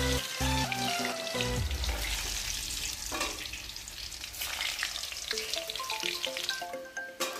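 Whole steamed potatoes sizzling as they deep-fry in hot oil in a steel wok, a steady crackling hiss. Light background music plays under it, low notes at the start and a stepping melody near the end.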